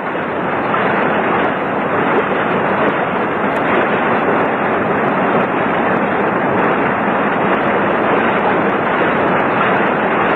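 Waterfall sound effect: a steady, loud rush of falling water.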